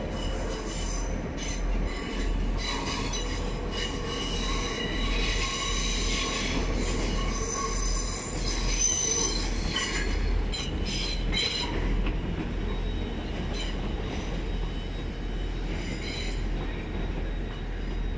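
Electric multiple-unit train moving through the station with its wheels squealing on the rails: several high, overlapping squeal tones that swell and fade over a steady low rumble, with a short run of sharp clacks about halfway through.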